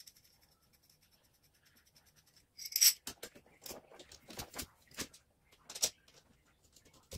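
Steel parts of a paintless-dent-repair lever tool clinking as they are fitted together by hand: a faint rapid ticking at first, then a loud clatter a little under three seconds in, followed by a handful of sharp metallic clicks.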